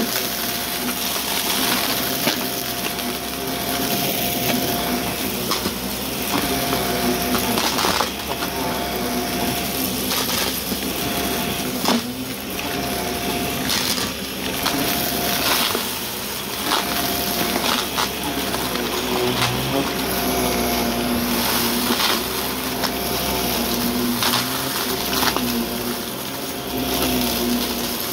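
Shark Navigator upright vacuum running steadily, its brushroll crunching through debris with scattered sharp clicks and crackles.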